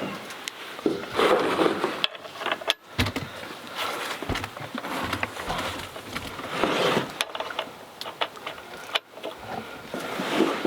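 Irregular clicks, knocks and scrapes of hand work on a chainsaw's bar and chain as the bar nuts are snugged and the chain tension is set.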